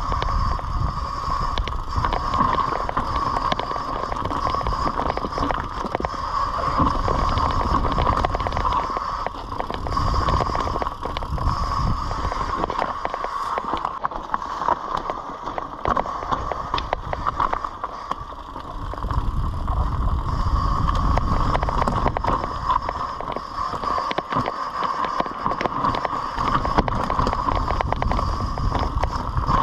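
Mountain bike descending a rough dirt trail: wind rumble on the microphone and tyre noise over leaves and roots, with a constant clatter of small knocks and rattles from the bike. The rumble eases in a few stretches and then picks up again.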